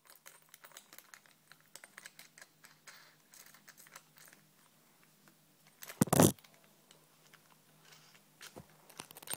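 Faint scattered clicks and small metallic rattles of hands working battery terminals and cables, with one louder knock and rustle about six seconds in.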